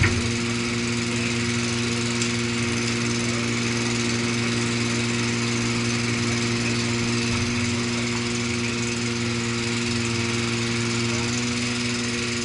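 A machine engine running steadily at a constant speed with an even, unchanging hum. There is a single brief knock right at the start.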